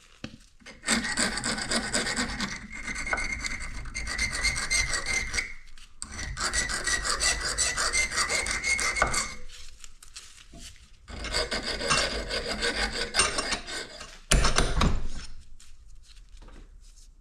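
Hand file rasping back and forth over the cut end of a bolt, smoothing and rounding off its edges. It comes in three spells of fast strokes with short pauses between them, and near the end there is a single loud thump.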